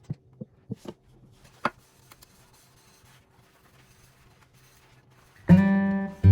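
A few light clicks and taps of household items being handled, with faint rubbing in between; about five and a half seconds in, acoustic guitar music starts and is louder than everything before it.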